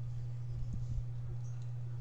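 Quiet sipping of water through a straw, with a few faint small clicks, over a steady low hum.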